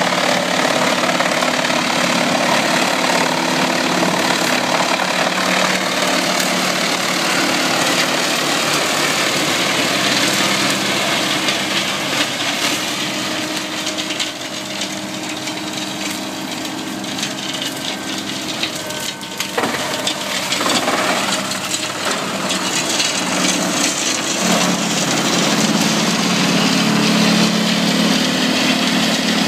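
Komptech wood chipper and its tractor running under load, chipping brush and branches: a steady engine note under a dense noise of wood being shredded. The sound dips briefly about two-thirds of the way through, and the engine comes back louder and stronger near the end.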